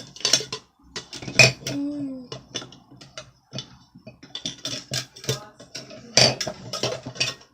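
Repeated clicks, knocks and rattles of a plastic gadget pencil case and pencils being handled.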